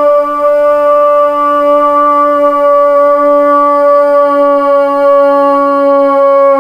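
A football commentator's long, drawn-out "Gol!" shout, held as one loud note at a nearly steady pitch to call a goal.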